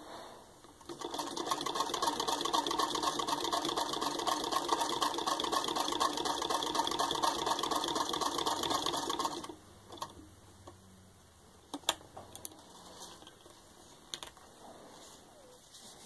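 Antique Singer Model 27 sewing machine stitching through six layers of denim, its handwheel spun by hand: a fast, even clatter of needle and shuttle for about eight seconds, starting about a second in and then stopping. A few separate sharp clicks follow.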